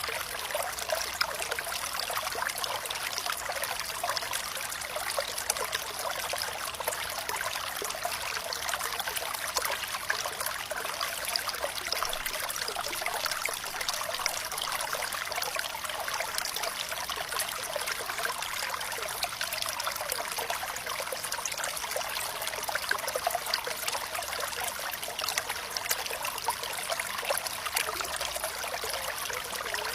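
Water flowing and trickling steadily, a constant light splashing that is all high and hissy with no deep rumble.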